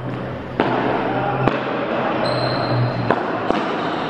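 Four sharp knocks of a ball being struck by rackets during a rally, irregularly spaced about a second apart, over background music and a steady low hum.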